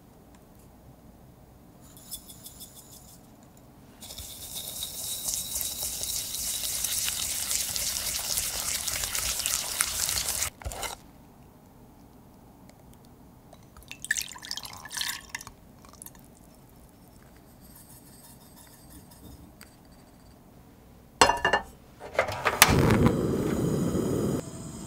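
Egg yolks and sugar being beaten in a glass bowl, a loud scraping, splashing stretch of about six seconds. Near the end a gas stove burner clicks a few times, catches with a whoosh and burns with a steady rush.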